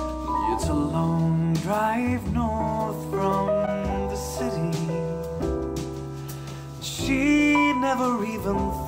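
A song with singing over piano or keyboard chords, played back through a pair of studio monitors and recorded by a microphone in the room: first JBL 306P MKII monitors, then Adam Audio T7V monitors.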